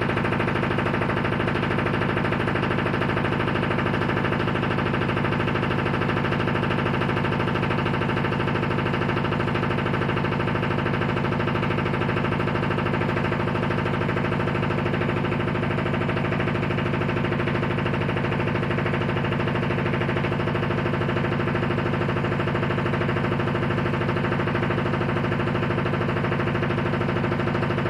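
Household washing machine making a loud, steady, rapid rattle, like a machine gun, that keeps going unchanged for nearly thirty seconds. The cause is unknown.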